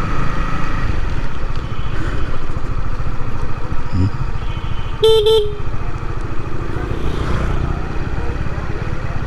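Motorcycle riding along with steady engine and road rumble, and a vehicle horn tooting twice in quick succession about five seconds in.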